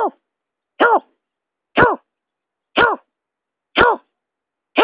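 Greater painted-snipe call played as a bird-trapping lure: short hoots that rise and fall in pitch, repeated about once a second, five times.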